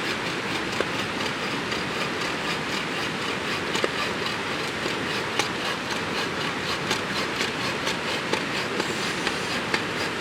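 Campfire crackling, with frequent sharp irregular pops over a steady hiss.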